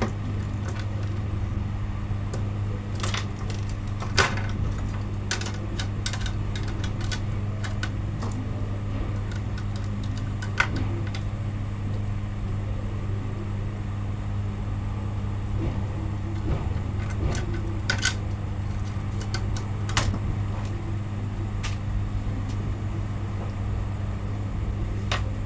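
A steady low hum runs under scattered light clicks and taps as a small screwdriver and a laptop cooling fan are handled and fitted onto a laptop motherboard.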